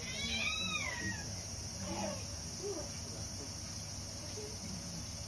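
A domestic cat gives a single short, high-pitched meow near the start, about a second long, rising and then falling in pitch.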